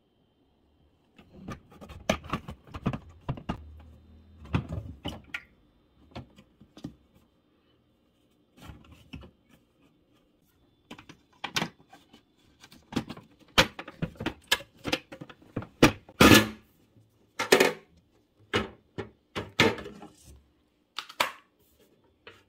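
Plastic clacks, knocks and scrapes of a dehumidifier's water tank being slid out and handled, its carrying handle flipped up; a run of sharp clicks early on, then a longer cluster with the loudest clacks about two-thirds through.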